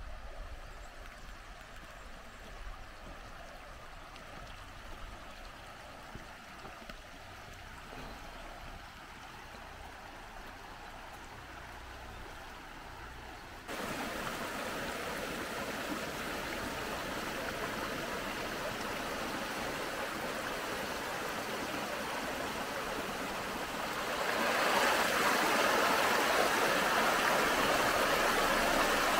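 Small forest brook running over rocks: faint at first, then suddenly louder about halfway through, and louder again near the end where it splashes down a small cascade between mossy boulders.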